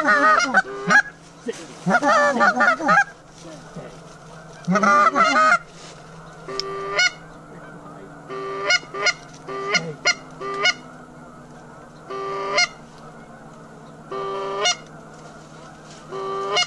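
Geese honking: a burst of overlapping, wavering honks in the first few seconds, then single short honks every second or two.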